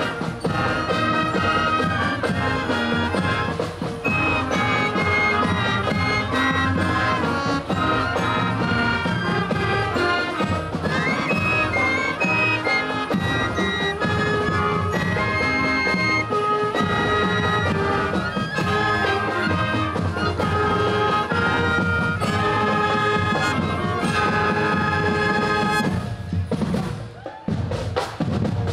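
Marching band playing a tune on the march, brass with flutes and saxophones carrying the melody. The music drops out briefly near the end.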